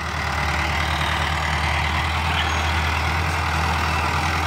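Mahindra Arjun 605 DI tractor's turbocharged four-cylinder diesel engine running steadily as it pulls a field implement, a low even drone that grows a little louder in the first second as the tractor comes closer.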